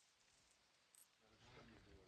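Near silence, with one faint click about a second in and faint sound rising near the end.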